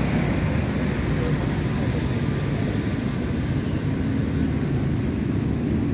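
Steady low rumble of street traffic outdoors, with faint background voices.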